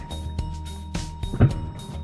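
Background music with a steady beat and sustained bass notes. A single louder low thump stands out about one and a half seconds in.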